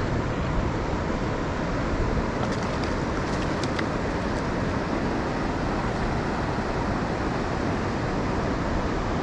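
Steady rush of river current flowing over rough water, an even noise that holds at one level throughout.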